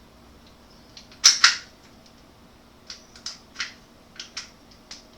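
Sharp clicks and knocks of Ruger 10/22 rifle and stock parts being handled during disassembly: two loud clicks a little over a second in, then a string of lighter clicks.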